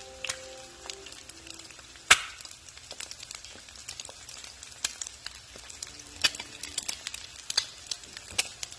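Eggs frying crisp in a hot pan: a steady sizzle with many sharp pops and crackles, one much louder pop about two seconds in.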